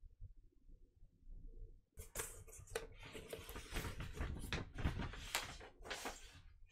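Stiff paper rustling and crinkling as a white sheet from a vinyl record package is handled, starting about two seconds in, with many sharp crackles.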